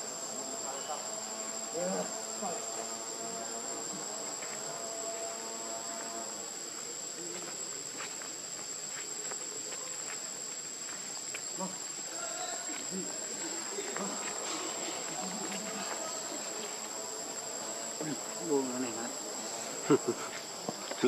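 Forest insects shrilling in one steady, high, unbroken tone. Near the end a few short, louder knocks and brief gliding sounds stand out over it.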